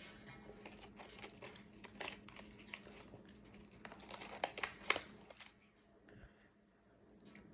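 Plastic snack wrapper crinkling and rustling as it is handled, a run of crackles that is loudest about four and a half to five seconds in and then stops.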